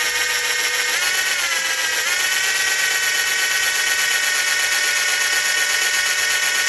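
Electric drill running steadily with a high whine, re-drilling deeper into a broken stud in a motorbike engine case. Its pitch wavers about one to two seconds in as the bit loads up, then holds steady.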